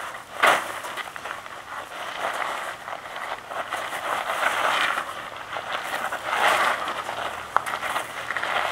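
Many feet scuffing and crunching on loose gravel as a group steps and pivots through a kung fu form, the crunching swelling and fading in waves. A single sharp hit stands out about half a second in.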